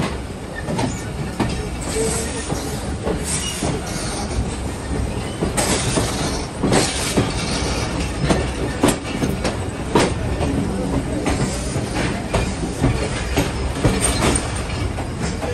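Train running along the track: a steady rumble with irregular sharp clacks of the wheels over the rails, several standing out in the second half.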